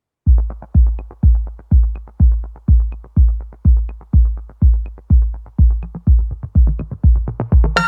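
Electronic background music: a heavy kick drum at about two beats a second with light ticks between, starting just after the opening, and synth chords coming in near the end.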